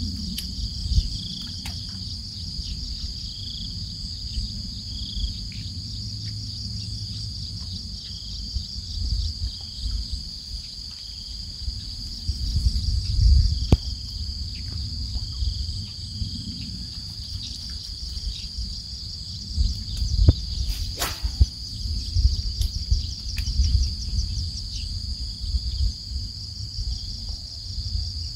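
A steady, high-pitched chorus of insects trilling, with a low rumbling noise underneath and a few sharp clicks.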